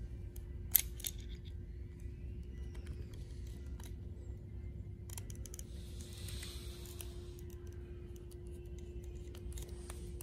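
Screwdriver driving a small screw into a Fusion Engine cylinder: faint scattered metal clicks and light scraping, with one sharper click about a second in, over a steady low hum.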